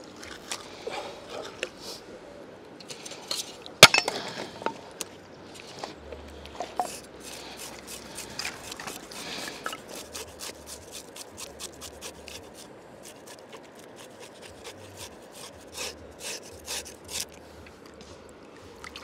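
A knife scraping the scales off a trout on a wooden cutting board: a quick run of short scrapes, with one sharp knock about four seconds in.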